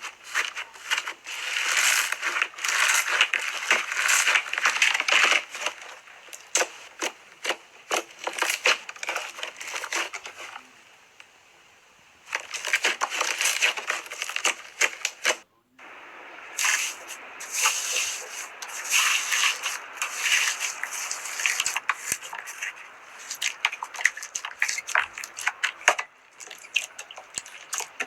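Slime being worked by hand, giving off dense, irregular crackling and clicking pops. The crackling eases off about ten seconds in, picks up again, and breaks off sharply for a moment about fifteen seconds in.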